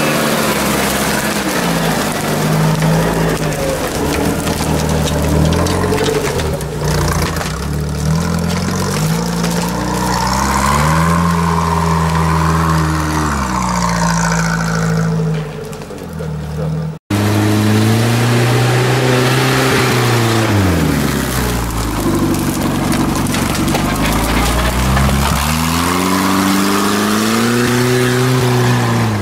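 Off-road 4x4 engines revving up and down over and over as they pull through mud, the pitch rising and falling in long swells. There is a brief break a little past halfway.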